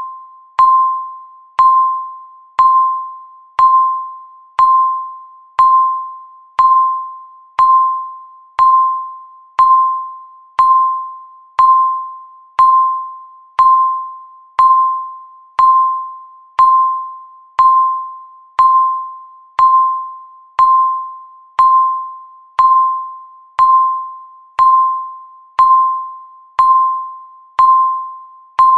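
Countdown timer beep once a second: a single steady pitch, each beep struck sharply and fading away before the next, marking each passing second.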